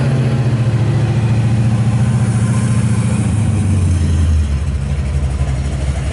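A motor vehicle's engine running steadily with a low hum, its pitch and loudness dropping about four seconds in.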